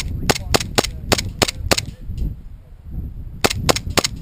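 Airsoft pistols firing: a quick string of about seven sharp shots over the first two seconds, then three more in rapid succession about a second and a half later.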